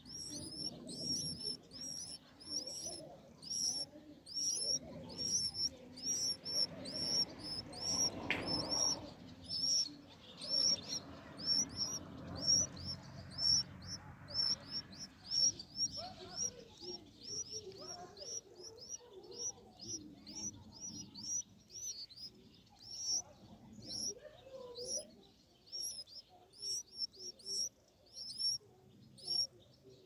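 Nestlings in the nest begging with quick, high-pitched chirps, a few per second, kept up throughout.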